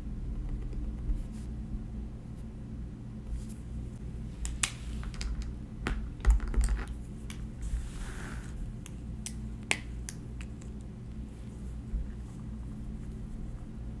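Pens and a highlighter being handled on a desk beside a spiral notebook: scattered sharp clicks and taps as a pen is set down and a Zebra Mildliner highlighter is picked up and uncapped, with one louder thump about six seconds in. A short soft scratch near the middle, over a low steady room hum.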